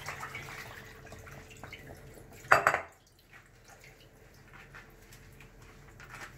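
Liquid trickling and dripping, then a brief loud clatter of cookware about two and a half seconds in, followed by a few faint light knocks.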